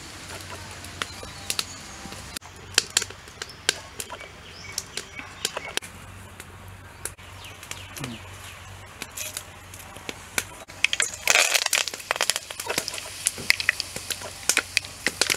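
Firewood crackling in a clay stove, with scattered sharp pops. About eleven seconds in, a louder burst of sizzling and popping starts, as mustard seeds hit the hot oil in the clay pot.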